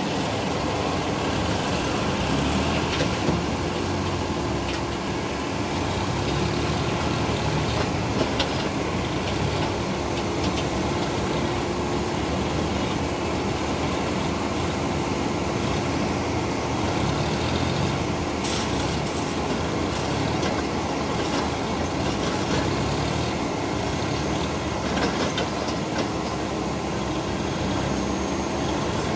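Tractor diesel engine running steadily, a continuous hum with no change in speed.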